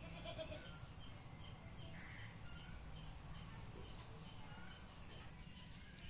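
Chickens' yard ambience: small birds chirp over and over in the background, and a short chicken call comes near the start, with another about two seconds in.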